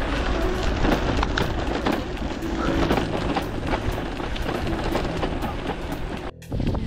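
Riding noise from a gravel bike: a steady rush of wind on the microphone and tyre noise over a rough surface, with many small clicks. It cuts out briefly near the end.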